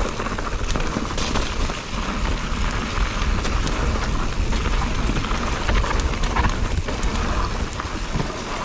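Mountain bike riding fast down a dirt forest trail: tyres crunching over dirt, stones and dry leaves with the bike rattling, under a steady low wind rumble on the microphone.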